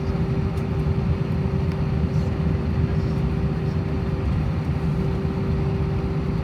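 Airbus A321 jet engines running steadily, heard inside the passenger cabin as a constant low rumble with a steady hum tone over it.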